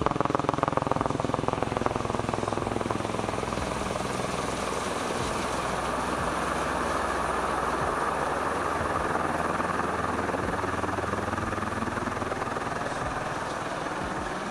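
Helicopter flying overhead. A fast, even rotor beat is heard at first, then a steady rotor and engine noise that is loudest about halfway through and eases off near the end.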